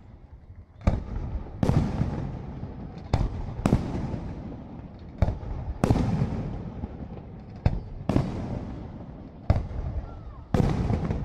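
Aerial firework shells bursting in a display: about ten loud bangs at irregular intervals, each trailing off in a long rolling echo.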